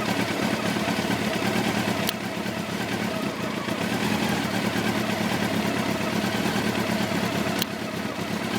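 1990 Honda CBR600's inline-four engine idling steadily, with two sharp clicks, about two seconds in and near the end. The owner reports an odd intermittent ticking that comes each time the bubble in the fuel filter wobbles.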